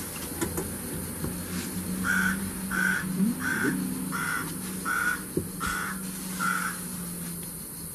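A bird calling seven times in an even series, about two-thirds of a second apart, starting about two seconds in.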